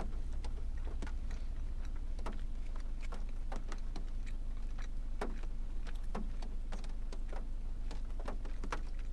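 Close-miked chewing of a burger: irregular wet mouth clicks and smacks, several a second, over a steady low hum.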